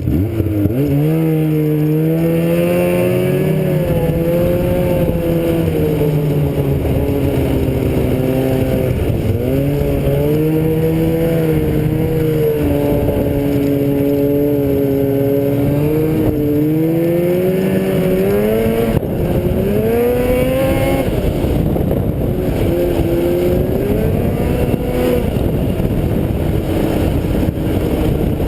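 Vehicle engine running while being ridden, its pitch rising and falling again and again as the throttle opens and closes.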